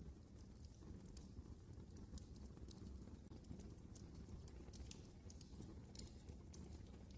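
Wood fire crackling in a fireplace: faint, irregular snaps and pops over a low, steady rumble.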